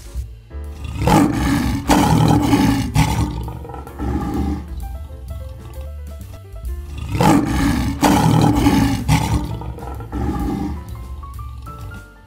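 Lion roaring twice, each roar lasting two to three seconds and about six seconds apart, over background music.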